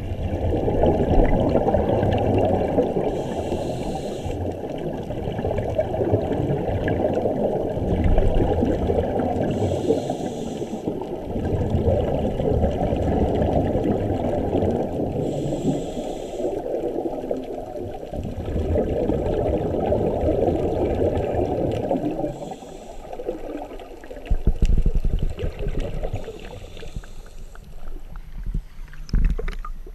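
Muffled underwater noise through a camera housing, with scuba regulator exhaust bubbles swelling about every six seconds as the divers breathe out. Near the end the camera breaks the water surface and the noise turns choppy.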